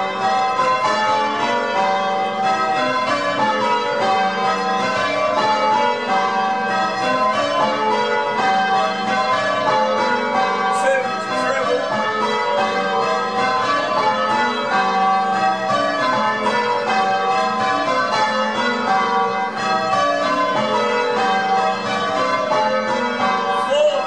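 A ring of church tower bells rung full-circle by a band pulling ropes, the bells striking one after another in a continuous, even run of overlapping ringing tones, heard from the ringing chamber below.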